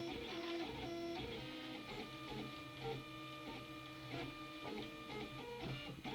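Stepper motors of a homebuilt H-bot 3D printer whining as the print head moves fast, the pitch of the tones jumping every fraction of a second as the head changes direction and speed.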